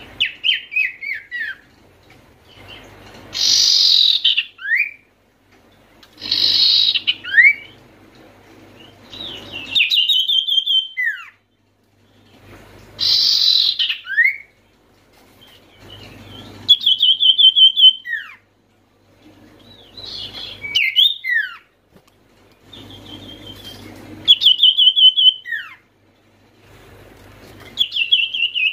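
Common iora (sirtu/cipoh) singing a phrase about every three seconds. The phrases alternate harsh rasping bursts with rapid trilled notes, each followed by sharp down-slurred whistles.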